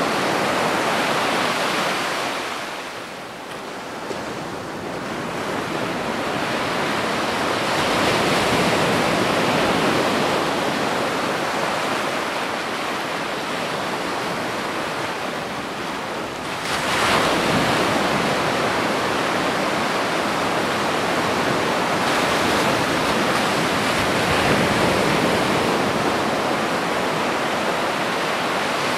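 Sea waves washing against a rock breakwater, with wind: a steady rushing noise that dips about three seconds in and swells up again about seventeen seconds in.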